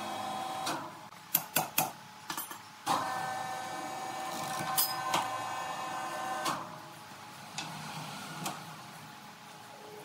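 Sawmill machinery running in spurts. A motor whine with several steady tones stops shortly after the start, and a few sharp knocks follow. The whine then runs again for about three and a half seconds and cuts off, with a couple of lighter knocks near the end.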